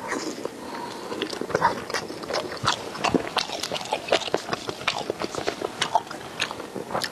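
A person biting and chewing spicy skewered food close to a clip-on microphone, heard as a stream of irregular small clicks and smacks from the mouth.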